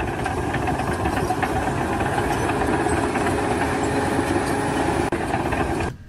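A steady mechanical running noise, like an engine, that cuts off suddenly near the end.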